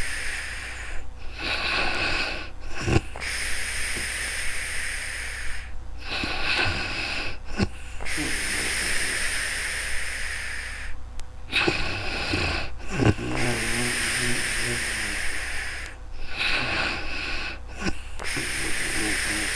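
A sleeping woman snoring and breathing heavily: a long airy breath alternating with a shorter, pitched snore, in a slow regular cycle about every five seconds, four times over.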